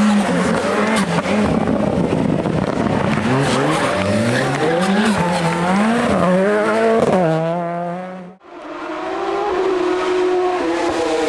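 Hillclimb race car engines at full throttle: the engine note climbs and drops again and again through gear changes. About eight seconds in the sound cuts out briefly, then another car's engine holds a steady note that falls away near the end.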